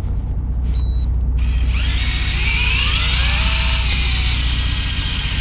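Electric fishing reel winding in line: a short beep about a second in, then the motor starts up and whines, rising in pitch as it speeds up, as the rig is reeled up from the bottom.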